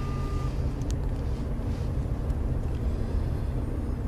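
Steady low rumble of a moving car heard from inside the cabin, with a faint short beep right at the start.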